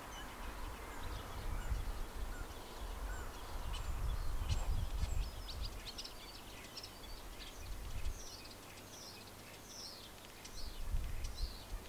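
Songbirds chirping, with a run of short, repeated falling whistled notes about two thirds of the way in. Under them, a gusty low rumble of wind on the microphone comes and goes.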